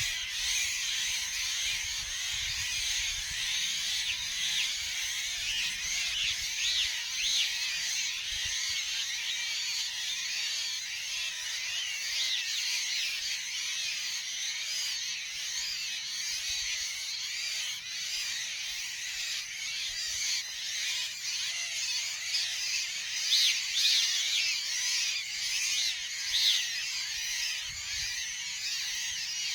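Many birds chattering in a dense, continuous chorus of short harsh calls over a steady high-pitched drone, with a few louder calls about 23 and 26 seconds in.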